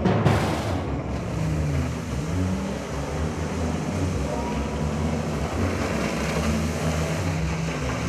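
Personal watercraft engine running at speed, its pitch rising and falling repeatedly as the rider carves turns, with the hiss of water spray.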